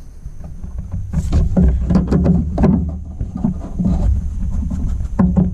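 Low rumbling and rubbing with scattered clicks and knocks as a hose clamp is worked back over a coolant reservoir's hose nipple by hand in a cramped engine bay.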